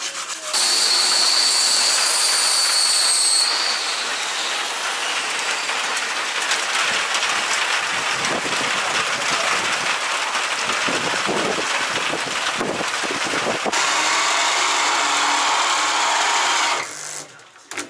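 Loud, steady hiss of escaping pressurised gas, like a blow gun or spray, lasting about sixteen seconds, with a high thin whistle over it for the first three seconds or so.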